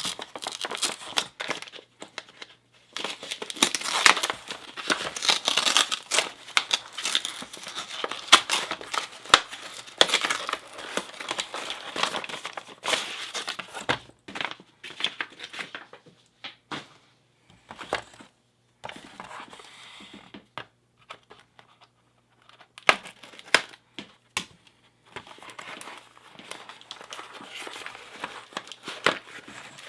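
A package being opened by hand: paper and cardboard packing crinkling and tearing in irregular spells, with scattered sharp clicks and a couple of brief lulls.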